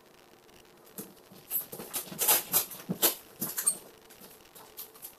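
Scattered rustles, light knocks and ticks of packaged goods being handled and packed into a cardboard box. They come irregularly, starting about a second in and thinning out near the end.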